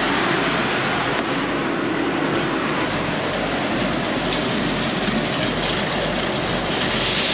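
PTO-driven grain auger running steadily, carrying corn up from the truck into the bin, with the tractor engine running underneath as a low hum.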